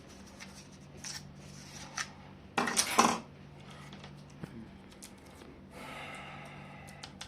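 A brush scrubbing a laptop's cooling fan and heatsink, with light clicks and taps as the plastic and metal parts are handled. A louder, rough brushing scrape comes about three seconds in, and a softer rough stretch near the end. A faint steady hum runs underneath.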